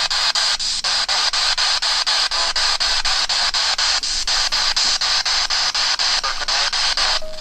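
Spirit box sweeping through radio stations: steady hissing static chopped into short slices about five times a second, with faint snatches of broadcast audio.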